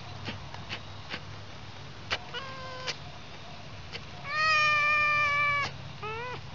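Red fox calling: a short, high-pitched call about two seconds in, then a long, steady call lasting about a second and a half, which is the loudest, and a brief rising call near the end. Faint clicks fall in the quiet gaps between the calls.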